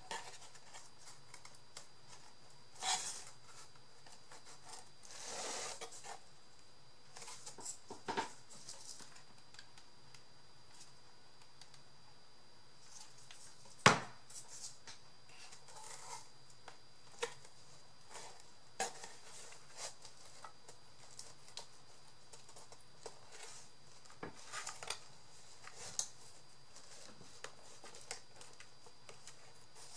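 Scattered small handling noises of craft pieces being worked by hand: light rustles, taps and clicks, with one sharp click about fourteen seconds in.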